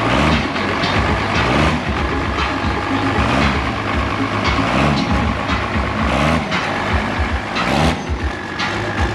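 Turbocharged diesel engine of a rat-rod truck revved over and over, its pitch rising and falling several times as the truck rolls slowly. Short sharp noises come between the revs.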